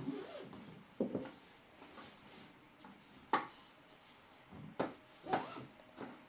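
Irregular knocks and clatters, about five over a few seconds, the sharpest about three seconds in.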